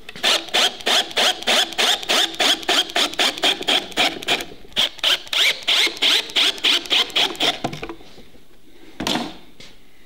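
Cordless drill boring through the wooden wall of an old beehive box, cutting in rasping pulses about three times a second, then stopping. A single short burst of noise follows about a second later.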